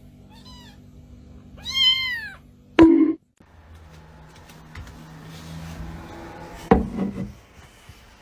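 A domestic cat meowing: a couple of faint short meows, then one loud drawn-out meow about two seconds in. A sharp knock follows about a second later, and there is another thud later on.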